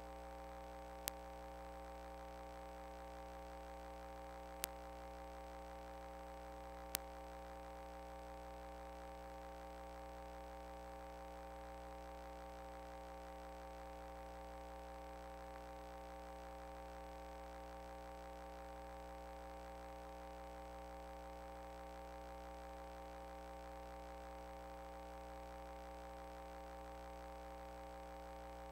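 Steady electrical hum made of several unchanging tones, with three sharp clicks in the first seven seconds.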